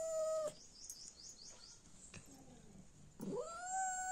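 A cat's long drawn-out meow ends about half a second in, and a second long meow begins about three seconds in, rising at its start and then holding steady. Between them come a few faint, quick high chirps.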